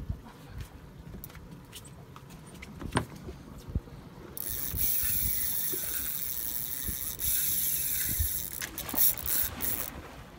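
Spinning reel's drag paying out line under a hooked fish's run: a steady high-pitched whine from about four seconds in, lasting about five seconds. Before it come scattered clicks from the reel being worked.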